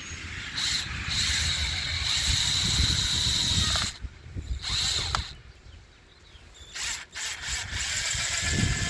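Cordless drill driving screws through a mounting plate into the wall: a long run of about three seconds, a short burst, then another run near the end.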